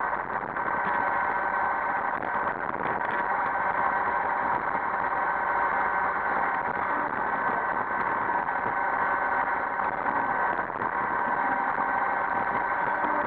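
iRobot Roomba 560 robot vacuum running: a steady whine from its vacuum and brush motors over a constant hum, with an occasional faint knock.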